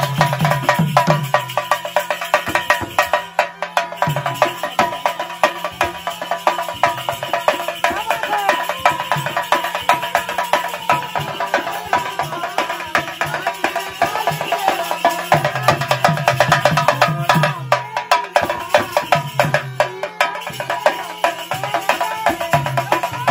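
Live folk band music: a barrel drum beaten in a fast rhythm with quick percussion strikes, under wind pipes playing a held, reedy melody. The deep drum beats swell in and out in stretches.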